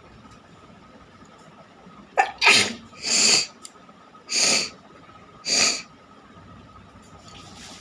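A person sneezing four times in quick succession, each sneeze a short loud burst about a second apart.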